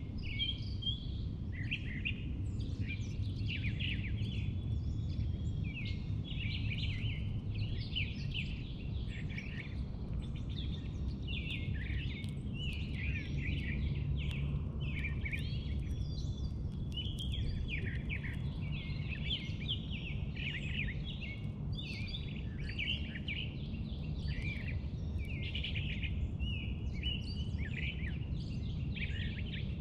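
Several songbirds chirping and singing continuously, many short overlapping calls, over a steady low background rumble.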